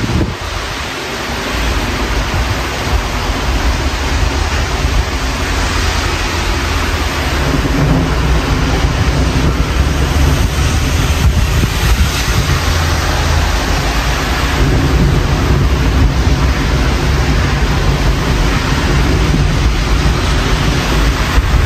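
Thunderstorm: a steady hiss of rain with a deep rolling rumble underneath that grows louder about seven seconds in and keeps going.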